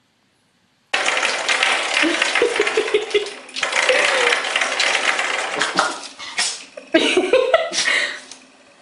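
A coiled-spring door stop twanging and rattling again and again as a puppy paws and bites at it, starting about a second in.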